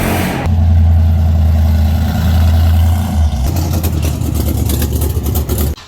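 A loud engine running steadily, its note changing about three seconds in, followed by fast, even rattling until it cuts off just before the end.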